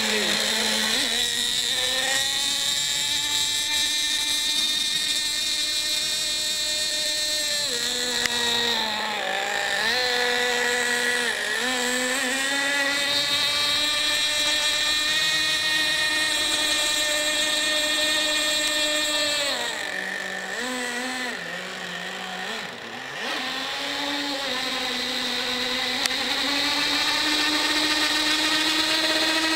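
RC speedboat motor whining at a steady high pitch, easing off in pitch briefly a couple of times and for a few seconds about two-thirds of the way through before rising back to full speed.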